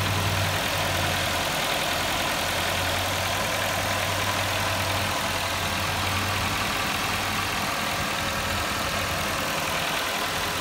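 Nissan Versa's four-cylinder engine idling steadily with the hood open, an even, unchanging hum.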